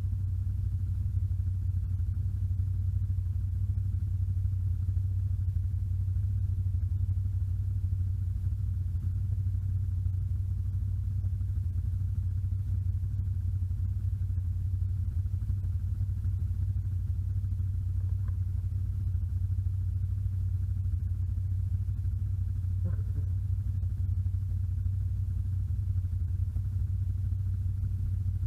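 An ATV engine running as a steady, deep drone that does not change in pitch.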